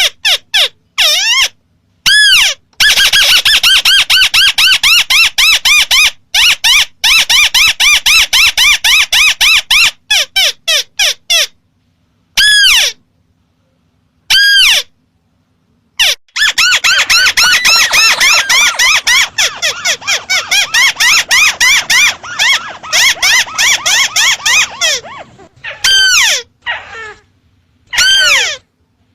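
Recorded lure call of a crake (burung tikusan): long, rapid runs of short arching whistled notes, broken several times by abrupt gaps of dead silence where the recording is cut and repeated.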